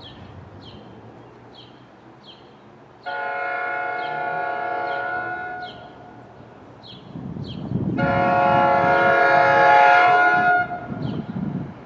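Approaching train's horn sounding two long blasts, one about three seconds in and one about eight seconds in, each a chord of several tones. A low rumble from the oncoming train builds under the second blast.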